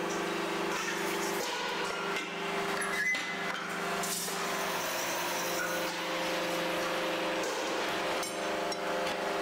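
An edge-milling machine trimming pressed steel hemispheres runs with a steady hum, with a few sharp metallic knocks and clinks.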